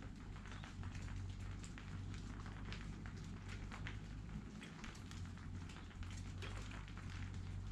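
Light rain: scattered drops ticking irregularly, over a low steady rumble.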